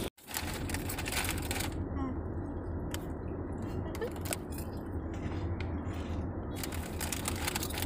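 Steady low road and engine rumble inside the cabin of a moving car, after a brief dropout at the very start.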